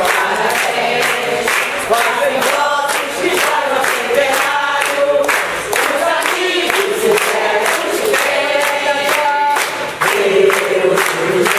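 A crowd singing together and clapping their hands in time.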